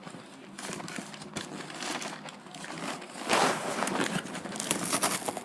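Cardboard and paper packing crinkling and rustling as a box is pulled open by hand, with small clicks of handling, getting louder about three seconds in.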